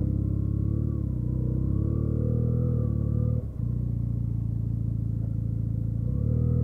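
Benelli TNT 300's parallel-twin engine running at fairly steady low revs while riding, with a brief dip in the sound about three and a half seconds in.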